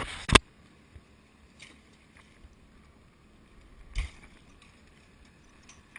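A short rush of noise that ends in one loud, sharp knock, followed by a few faint knocks and a duller thump about four seconds in.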